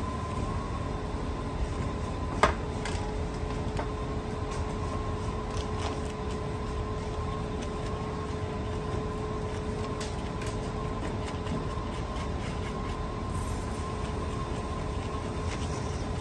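A metal spoon scraping the seeds and pith out of halved bitter gourds, with faint small ticks and one sharp click about two and a half seconds in, over a steady machine hum with a faint high whine.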